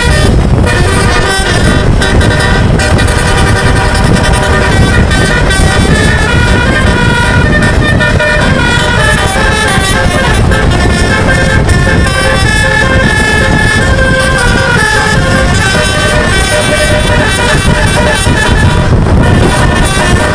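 Bus 'telolet' multi-tone musical air horn playing a tune of rapidly changing notes, over a steady low rumble.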